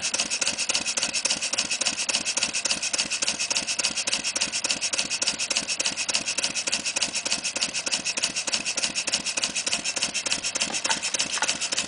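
Clarkson model vertical steam engine running on compressed air at about 220 rpm. Its exhaust gives rapid, even, hissing beats.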